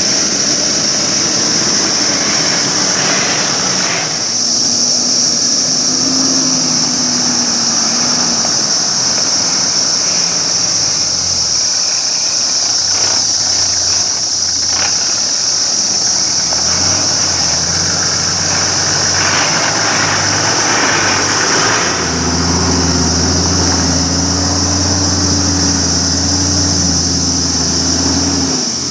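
Toyota Landcruiser 80 Series 4.2-litre turbo-diesel straight-six running at low revs as it crawls over rutted rocky tracks, its note wavering slightly with the throttle. A loud, steady high-pitched drone of cicadas sits over it the whole time.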